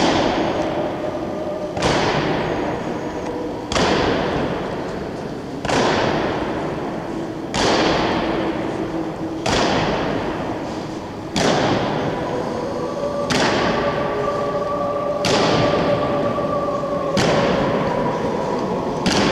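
Honour guard's boots striking a stone floor in unison in slow ceremonial march step, one heavy stomp about every two seconds, each ringing on in the reverberant hall.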